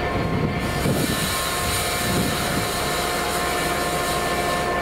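A train passing at speed, a steady rushing hiss of wheels and air that swells about half a second in, with a few faint steady whining tones under it.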